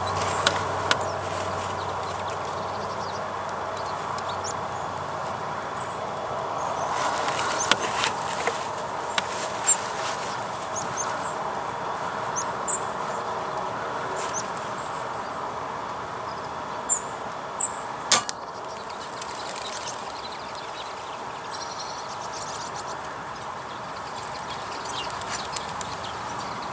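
Rural outdoor ambience: a steady even rush of background noise with scattered short, high bird chirps. A single sharp crack comes about two-thirds of the way through.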